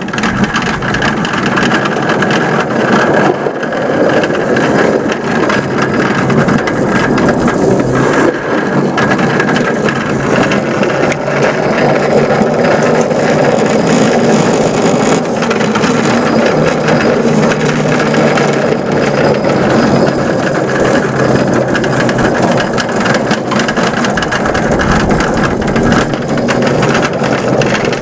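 Ride-on 5-inch-gauge Whitcomb locomotive running steadily along its track, a constant running noise dotted with many small clicks and rattles.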